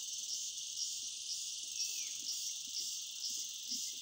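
Steady, high-pitched chorus of insects chirring in forest undergrowth, pulsing several times a second.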